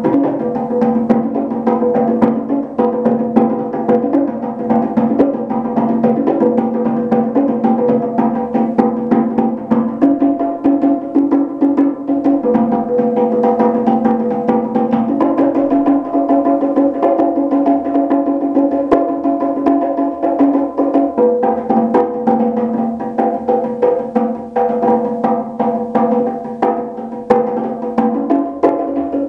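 Pair of bongos played by hand in a free improvisation: a fast, dense stream of strokes with no pause, the drums' held ringing tones shifting in pitch every few seconds.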